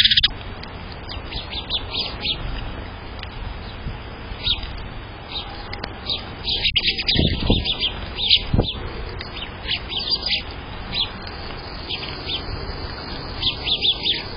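House sparrows chirping in quick bursts of short, high chirps, including the begging calls of a fledgling. A couple of low thumps come about halfway through.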